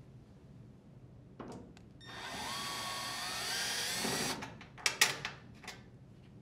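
Drill driver spinning for about two seconds, its motor whine rising in pitch as it backs a screw out of the dryer's sheet-metal top panel. A few light clicks follow shortly after it stops.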